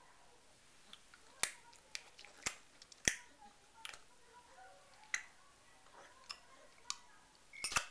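Teething baby gnawing on a soft toy: irregular wet mouth clicks and smacks, about a dozen, with a quick run of them near the end.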